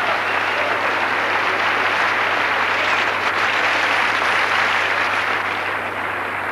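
Large theatre audience applauding after a punchline: dense, steady clapping that starts to die down near the end.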